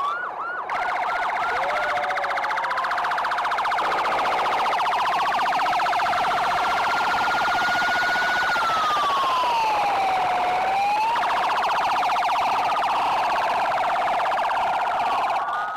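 Police car sirens sounding, more than one at once. For about the first two seconds a fast yelp repeats several times a second; after that a slow wail rises and falls over a steady buzzing tone. The sound stops abruptly at the end.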